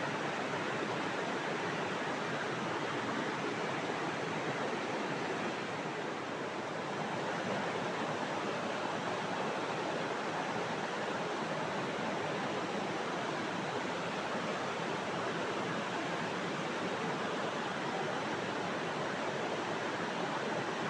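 River water rushing steadily, an even unbroken noise of flowing water.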